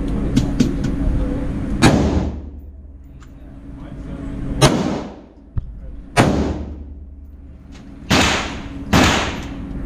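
Five handgun shots fired at uneven intervals, the last two close together. Each has a short reverberant tail inside the indoor range.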